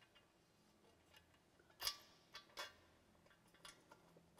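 A handful of light, sharp clicks and taps as a small screw is fitted by hand into a plate on a metal net beam, the loudest about two seconds in.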